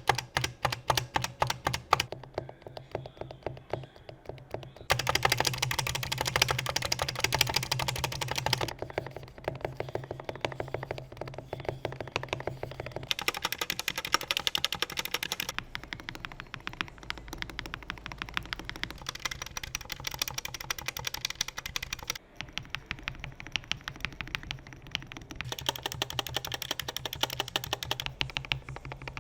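Fast, continuous typing on an Epomaker SK64 keyboard with optical switches, many key clacks a second. The clacks change in brightness abruptly several times, as between separate typing passages.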